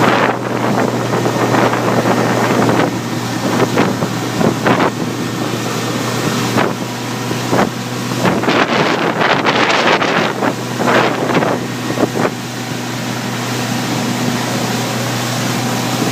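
Motorboat engine running steadily at speed, with a steady hum under the rush of water. Wind buffets the microphone in gusts, heaviest around the middle.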